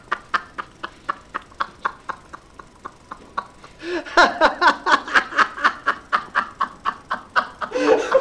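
A man laughing hard in quick rhythmic bursts, about four or five a second, which taper off and then break out louder again about four seconds in.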